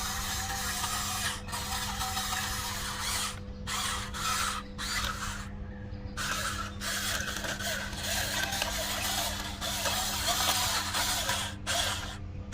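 Small electric motors and plastic gearboxes of a remote-control toy construction vehicle whirring as it works, stopping briefly several times as the controls are released, over a steady low hum.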